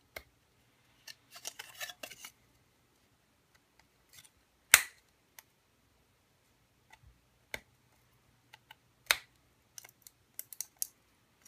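Hard plastic model car shell being trimmed with hobby side cutters: irregular sharp snips and cracks as bits of the plastic are cut and snapped away, the loudest about five seconds in.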